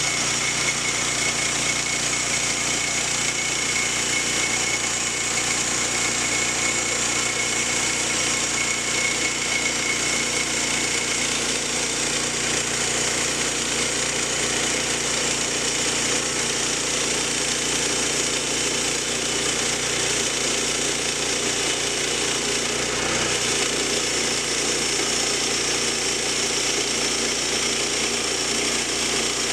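Woodland Mills HM122 portable bandsaw mill running steadily under load, its engine driving the band blade through a pine log as the saw head is pushed along the cut. A thin whine sits over the engine sound and fades out about a third of the way in.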